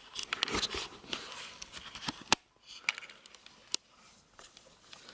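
Handling noise from a handheld camera as it is turned around and carried: scattered clicks and rustles, busiest in the first half, with a few sharper clicks later on.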